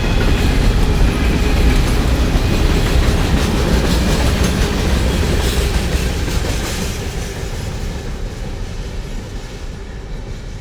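Train passing on the mainline, wheels clacking over the rails with a loud rushing rumble that fades steadily over the last few seconds as it moves away.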